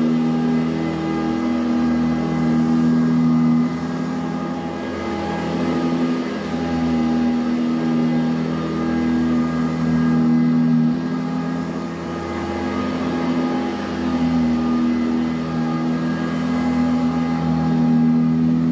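Eureka High Filtration Commercial upright vacuum cleaner running on carpet, a steady motor hum and whine. Its pitch and loudness shift a little every couple of seconds as it is pushed back and forth.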